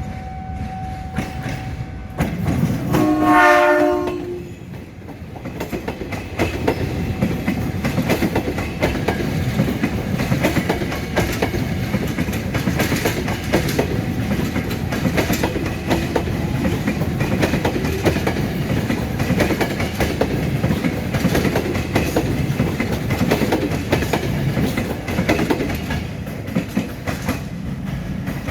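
A train horn sounds once, a few seconds in, for about two seconds. A train then passes, with a steady rumble and wheels clattering over the rail joints.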